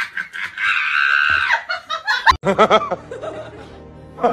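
A cat's drawn-out meow lasting about a second, among quick laughter-like sounds. After a sharp click about two seconds in, a series of repeated wavering cries from another source follows.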